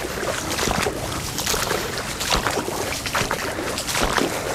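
Wellington boots wading through shallow floodwater on a path, splashing with each step, about two steps a second.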